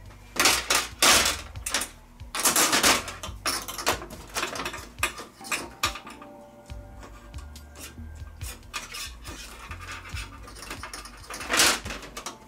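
Small metal parts clattering and rattling against metal, in loud bursts about half a second in, from about two to three seconds in, and again near the end, with lighter clicks between.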